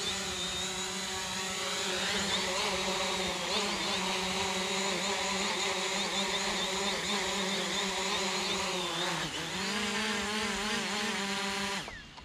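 Hubsan Zino quadcopter's motors and propellers giving a steady multi-toned whine as it lands on its pad. The pitch wavers about nine seconds in, then the motors spin down with a falling pitch and stop near the end.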